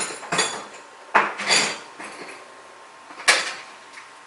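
Metal tools and parts clinking and clattering, as if picked up and set down on a workbench: about five sharp knocks, the first two with a brief metallic ring.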